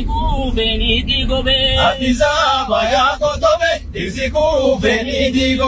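A man singing in a chant-like voice, his pitch wavering and held on long notes, over a steady low hum.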